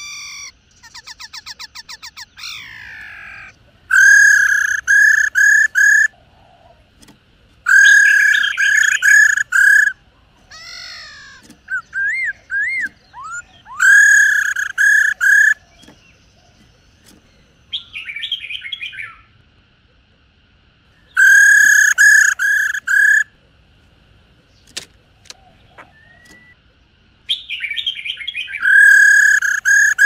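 White-cheeked laughingthrush calling: a female's rattling 'ro ro' calls, used to excite males, come as bursts of rapid repeated notes lasting about two seconds each, every few seconds. Shorter trills and sliding whistled notes fall between the bursts.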